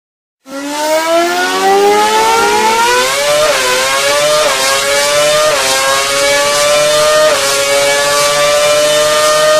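Formula 1 car engine accelerating: a high whine that climbs steadily in pitch for about three seconds, then stays near the top with four brief dips as it shifts up through the gears.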